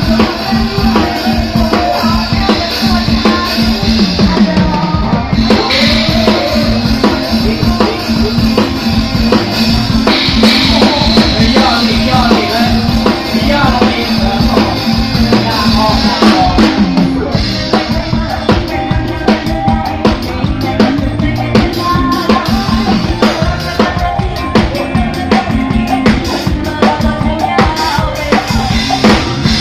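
Live band playing dance music with the drum kit loud and close: kick, snare and cymbals driving a steady beat under keyboard and bass.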